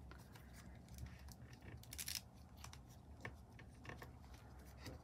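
Faint rustling, scratching and small clicks of hands handling a Bratz fashion doll and its tiny clothes and shoes, with a sharper click about two seconds in.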